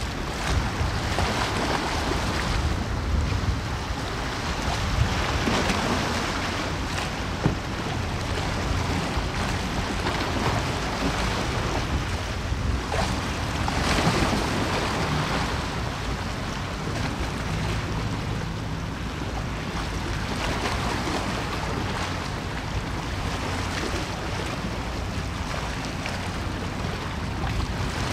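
Wind rushing over the microphone mixed with the wash of open water, a steady noise that swells and eases every few seconds. A single sharp knock comes about a quarter of the way in.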